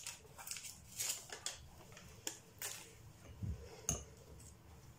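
Quiet kitchen handling sounds at a frying pan: a few light clicks and rustles as a paper spice sachet is handled over the pan, then a low thump and a sharper click near the end as a wooden spatula goes into the nonstick pan.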